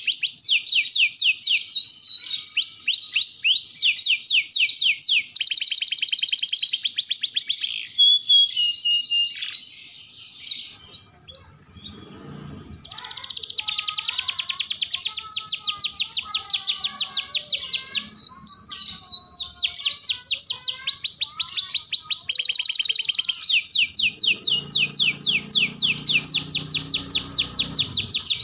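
Domestic canary singing a long, fast song of rapid high trills and rattling repeated notes. About ten seconds in the song breaks into a few softer, lower warbles, then a long unbroken rapid trill follows.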